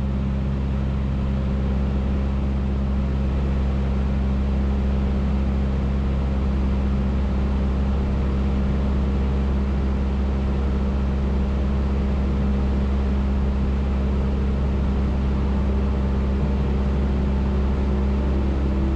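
Cessna light aircraft's piston engine and propeller running at steady power, a constant drone heard from inside the cabin.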